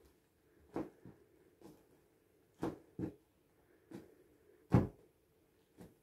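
Irregular dull taps and thumps on a taut, inflated vinyl pool toy as it is poked and pressed, about eight in all. The loudest comes a little before the end.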